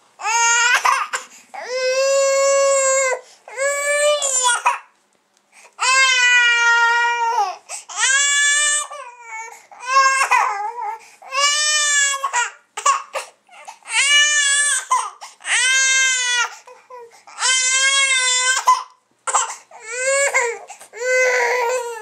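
Baby crying: a string of high-pitched wails, each about a second long, broken by short gasps for breath.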